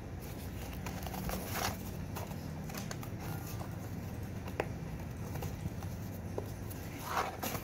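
Small cardboard box being handled and pried open by hand: scattered light taps, clicks and scrapes of the cardboard, with a louder scrape near the end, over a low steady background hum.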